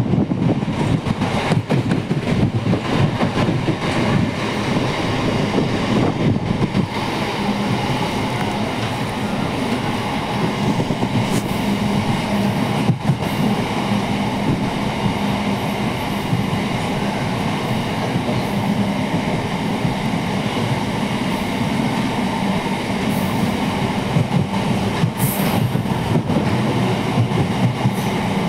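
MEMU electric train running at speed, heard from its open doorway: a steady, loud rush and rumble of wheels on rail, with a steady hum that comes in about seven seconds in and a few sharp clicks.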